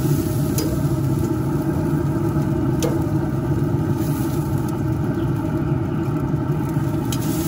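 A steady low rumble, with a few light clicks of metal tongs against the grill grate and a stainless steel bowl as chicken wings are lifted off the grill.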